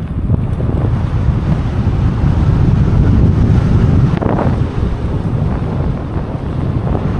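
Wind buffeting the microphone of a moving electric off-road scooter, a dense low rumble, with a brief brighter rush about four seconds in.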